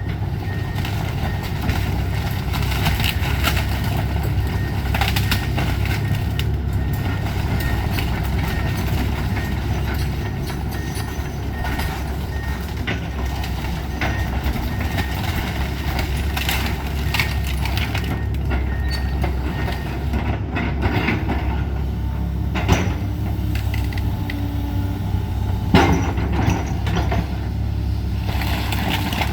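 Excavator's diesel engine running steadily during a house demolition, with a faint beep repeating at an even pace. Later come a few sharp cracks and knocks of the building being broken up, the loudest near the end.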